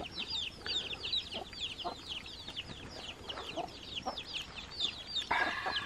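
Chickens in a farmyard: a brood of chicks peeping without pause, many quick high falling chirps overlapping, with a brief louder sound about five seconds in.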